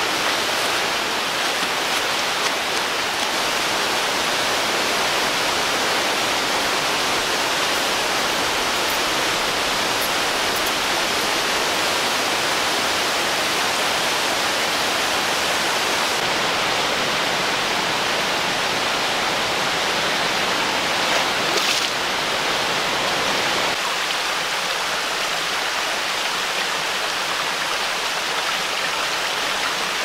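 River rapids rushing over rocks: a loud, steady hiss of whitewater. About three-quarters of the way through, the low end of the rush thins out and it gets slightly quieter.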